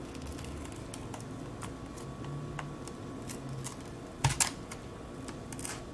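Pry pick worked under the edge of a cracked iPad 6 digitizer, lifting the glass from its adhesive: scattered small clicks and crackles, with a louder cluster of clicks about two-thirds of the way through.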